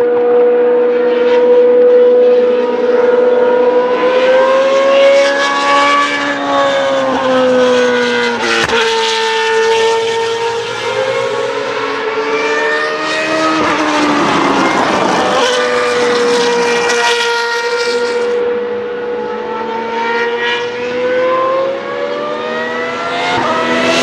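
Naturally aspirated V8 single-seater race car engines running at high revs on the circuit. The engine note holds steady with repeated rises and dips in pitch, and climbs and then falls sharply near the end.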